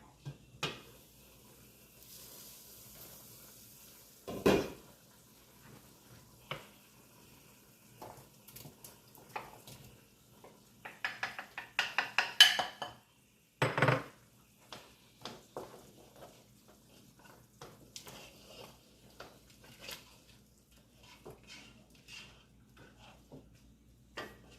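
Metal spoon clinking, tapping and scraping against a cooking pot as ingredients are added and stirred. There is a louder knock about four seconds in, a quick run of clinks around eleven to twelve seconds, and another knock near fourteen seconds, followed by lighter scattered taps.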